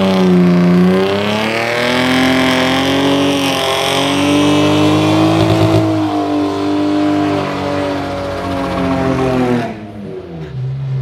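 BMW E36's engine held at high revs, its pitch wavering up and down, while the spinning rear tyres squeal in a smoky burnout. Near the end the engine and tyre noise drop off suddenly as the car moves away.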